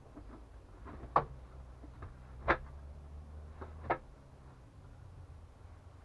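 Wooden plank bed knocking as it is pressed on by hand and then sat on, three sharp knocks a little over a second apart with fainter creaks between. The frame is settling down onto its supports.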